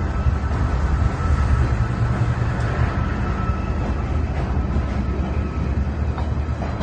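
Diesel freight train passing at close range: Class 68 locomotive engine rumble with a steady whine over the first few seconds, then container flat wagons rolling by with scattered wheel clicks over the rail joints.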